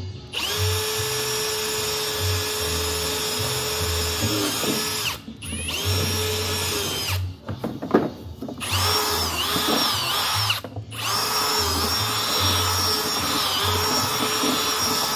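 Electric drill boring through a mower's plastic fender, running in four long bursts of steady whine with short pauses between them, the pitch sagging as each burst stops. Background music with a low beat plays underneath.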